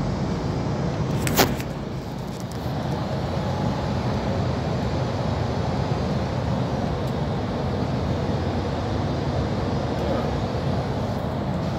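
DAF semi-truck's diesel engine and tyre noise droning steadily inside the cab while driving. A single sharp knock comes about a second and a half in.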